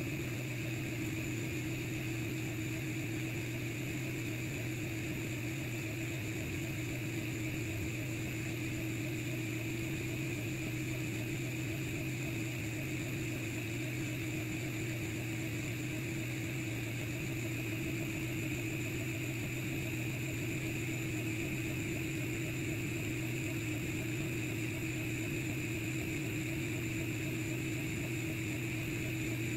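Steady, unchanging mechanical hum with a high whine from a running Longer Ray 5 diode laser engraver.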